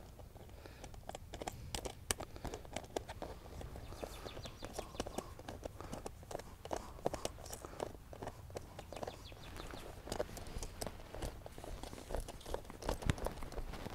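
Small, irregular clicks and taps of hand-fitted hardware: a bolt, washer and nut being worked onto the plastic bracket of an Intex motor mount kit, coming thicker in the second half.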